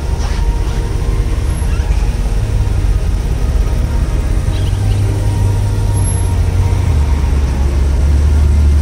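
Low engine rumble of cars idling and crawling past at close range, growing louder near the end.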